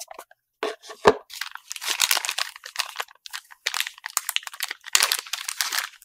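Clear plastic bag crinkling and rustling as it is opened by hand and the parts inside are pulled out, with one sharp click about a second in.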